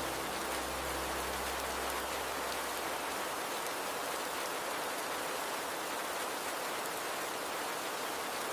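Steady rain falling, with flowing river water under it. A soft low hum fades out in the first few seconds.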